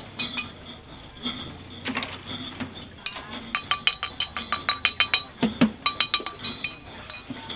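A mechanism clicking rapidly and evenly, about six sharp clicks a second, for nearly four seconds starting about three seconds in, after a few scattered clinks.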